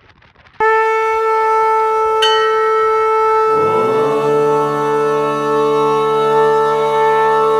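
Conch shells (shankh) blown in long held notes. One steady note starts suddenly about half a second in, and about halfway through a second, lower conch slides up in pitch and holds beneath it.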